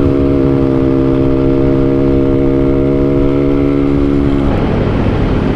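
Yamaha RX-King's two-stroke single-cylinder engine running at steady revs, its pitch held level, then turning rough and uneven about four and a half seconds in.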